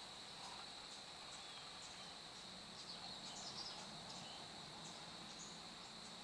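Faint, steady insect chorus holding one high pitch, with scattered short high chirps over it.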